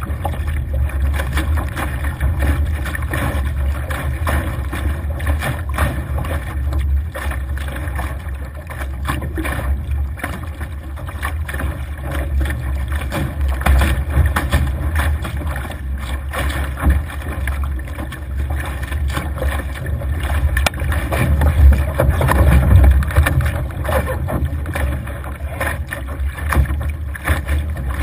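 Laser dinghy's hull driving through choppy water: a steady rush of water and spray slapping at the bow, with wind buffeting the deck-mounted camera's microphone. It swells in louder spells, loudest a little past two-thirds of the way through.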